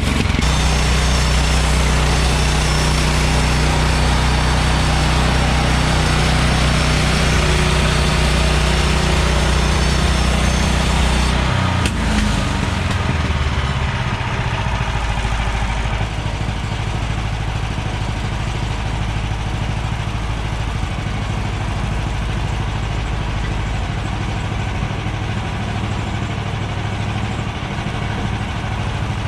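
Gasoline engine of a portable band sawmill running steadily. Its deep tone shifts about 12 seconds in, and it runs a little quieter from about 16 seconds.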